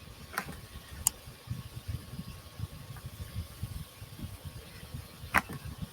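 Three sharp clicks, about a second in, then near the end, over a low, uneven rumble: computer mouse clicks while editing a design on screen.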